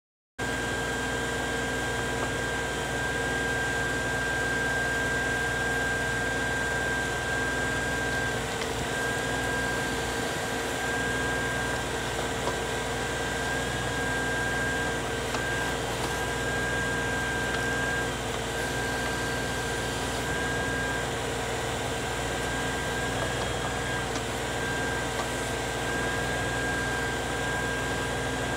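Compact diesel tractor running steadily while its backhoe digs, engine and hydraulics making a constant hum with a steady high whine over it.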